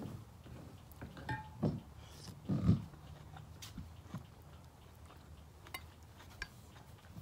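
A person eating a mouthful of raw salmon salad close to the microphone: chewing and lip smacks, the loudest about two and a half seconds in, with small clicks of a metal spoon.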